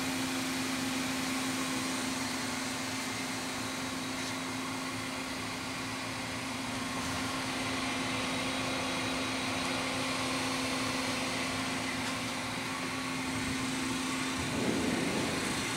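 Royal Master TG 12x3 centerless grinder running under power: a steady motor hum with one strong low tone and an even hiss above it. Near the end there is a brief irregular scrape as the machine's sheet-metal cabinet door is swung open.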